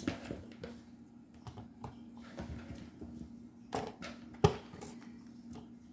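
Potatoes being set into a baking pan of crab and corn: scattered light knocks and clicks, with one sharper knock about four and a half seconds in, over a faint steady hum.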